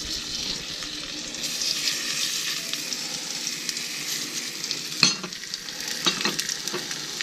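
Oyster mushroom pieces sizzling with fine crackle in hot butter in a stainless steel skillet as they are laid into the pan, with one sharp knock about five seconds in.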